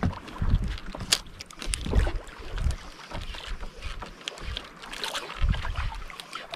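Wind buffeting the microphone in irregular gusts, with water lapping and slapping against a small outrigger boat.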